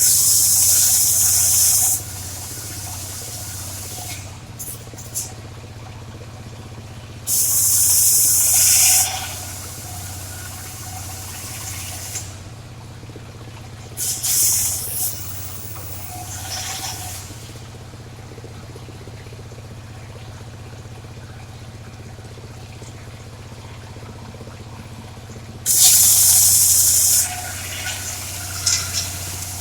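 Engine-driven circular saw running steadily while its blade rips through dry waru (sea hibiscus) wood, with loud high-pitched cutting noise four times: at the start, about seven seconds in, faintly around fourteen seconds, and near the end.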